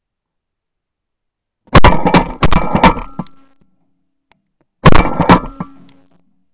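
Two bursts of fire from a Benelli SBE3 12-gauge semi-automatic shotgun, about three seconds apart. Each is a loud, sharp report followed by quick further cracks that die away within about a second.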